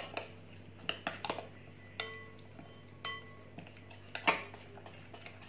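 A spoon stirs a thick spice paste in a glass mixing bowl, knocking against the glass about half a dozen times. Some knocks leave a short ringing tone, and the loudest comes a little past four seconds.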